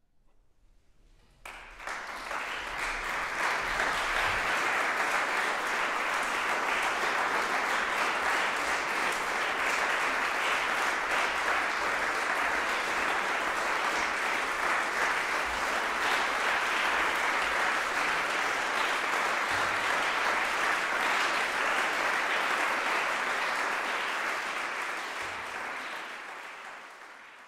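Audience applauding: the clapping starts suddenly about a second and a half in, stays steady, and fades out near the end.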